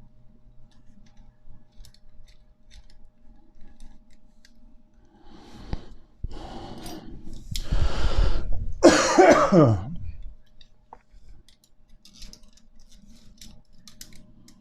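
Faint metallic clicks of steel spokes and nipples being threaded through a bicycle wheel hub and rim. About halfway through, a person coughs and clears their throat several times, the loudest, near the end of that stretch, dropping in pitch.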